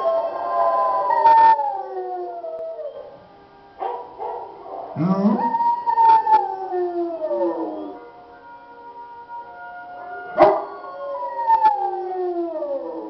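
A yellow Labrador-type dog howling: three long howls, each starting high and sliding steadily down in pitch over two to three seconds.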